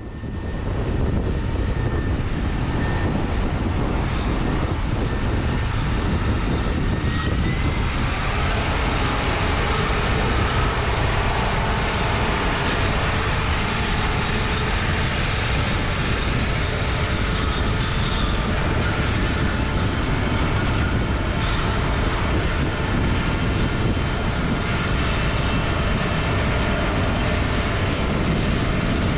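Heavy diesel farm machinery running steadily: a loud, even engine drone with dense mechanical noise that comes in just after the start and holds level throughout.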